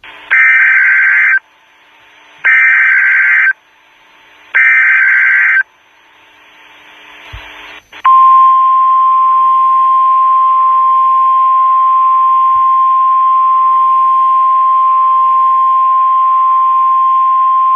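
NOAA Weather Radio Emergency Alert System signal: three one-second screeching bursts of SAME digital header data about a second apart over faint radio hiss, then the steady single-pitch 1050 Hz warning alarm tone sounding for about ten seconds. It marks a warning-level alert, here a high wind warning.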